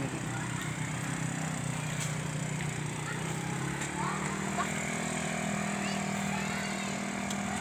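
A small engine running steadily, its pitch rising a little about four seconds in.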